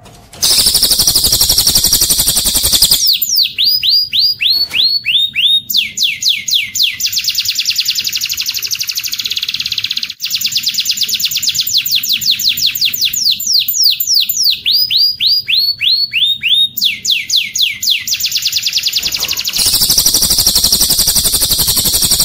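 Recorded birdsong of cililin joined with canary song, a bird-training track. A dense, fast high trill opens and closes the passage, and in between come long runs of quick, repeated whistles, each sliding down in pitch, several a second.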